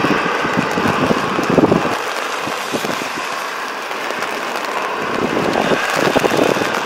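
Airbus A320-family airliner's twin jet engines running up for a takeoff on a rain-soaked runway: a steady loud rushing noise, with irregular low gusts buffeting the microphone, strongest about a second and a half in and again near the end.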